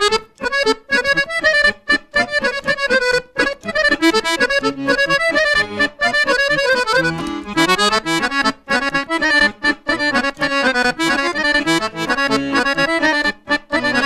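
Dallapé chromatic button accordion playing a fast instrumental interlude of a Serbian folk tune: quick runs of short notes over a pumped bass accompaniment, with no singing.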